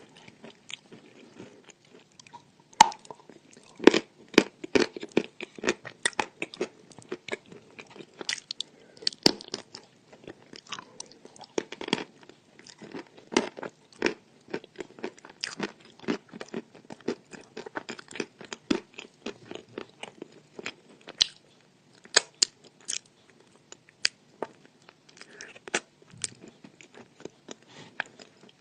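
Chalk being bitten and chewed close to the microphone: dry, crackly crunches come several times a second, with a brief pause about twenty seconds in.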